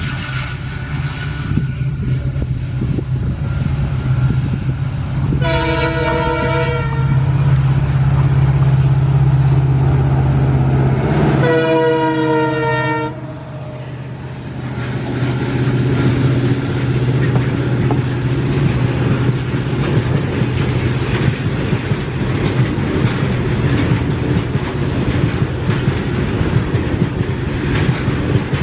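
Diesel locomotive approaching and passing with a steady low engine drone, sounding its multi-tone horn twice, a blast of about a second and a half and then one of about two seconds. After the second blast the engine fades and the coaches go by with steady wheel and rail noise.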